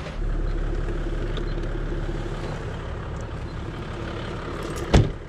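An engine running steadily: a low drone with a faint steady whine, and one sharp knock near the end.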